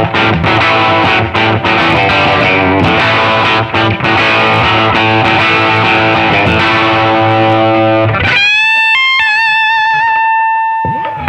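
Electric guitar with Lundgren Heaven 57 humbucker pickups played for a sound test: chords and riffing, then about eight seconds in a single lead note that is bent up, held with vibrato and left to fade near the end.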